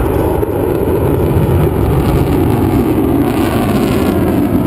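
Belgian Air Force F-16 fighter jet flying a display, its jet engine producing a loud, steady low noise with no distinct tone.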